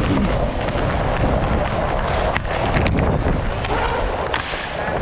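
Wind rushing over a body-worn action camera as the wearer skates, mixed with the rumble of inline skate wheels rolling on the rink floor. A few sharp clacks of sticks and puck come through, one near the end.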